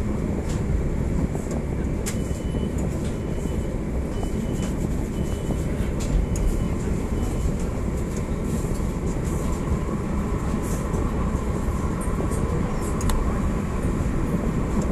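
Coupled pair of PCC trams running along the track, heard from the driver's cab: a steady low rumble of wheels on rail with occasional sharp clicks. A faint steady hum joins in after about nine seconds.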